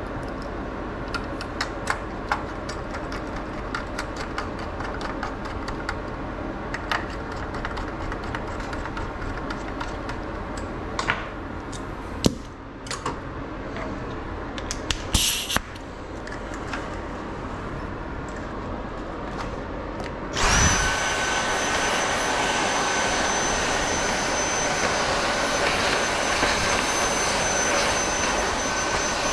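Steady background hum with scattered light clicks and taps of small tools. About two-thirds of the way in, a small electric air blower switches on: a loud, steady rush of air with a high motor whine.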